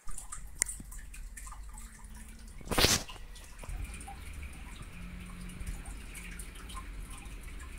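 Handling noise from a gaming headset's cable and plastic inline remote: scattered small clicks, and one louder rustling burst about three seconds in.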